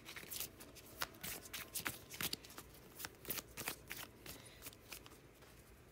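A deck of tarot cards being shuffled by hand: a quick, irregular run of soft card slaps and clicks that dies away near the end.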